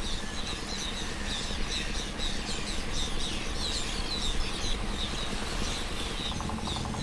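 A flock of terns calling over and over, many short high calls overlapping, with a low steady rumble underneath.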